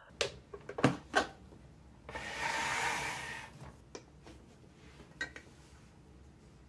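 A plastic electric kettle lid clicked shut a few times, then a glass teapot handled on a wooden counter: a rubbing scrape lasting about a second and a half, followed by a couple of light clinks.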